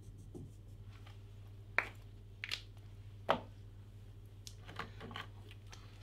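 Whiteboard marker tapping and making short strokes on a whiteboard, drawing a dashed line: a handful of sharp irregular taps and short squeaks. A steady low hum runs underneath.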